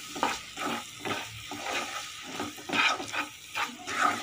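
Black spatula stirring and scraping a thick spiced masala paste around a nonstick pan as it fries, a soft scrape with each stroke, repeated irregularly two or three times a second.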